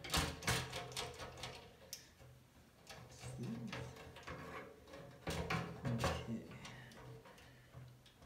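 Irregular light clicks and knocks of screws, a screwdriver and a stamped-metal power supply bracket being handled while a power supply is fitted into a PC case.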